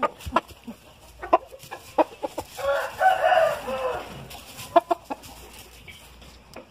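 A rooster crows once near the middle, a call about a second and a half long, among scattered sharp clicks and knocks.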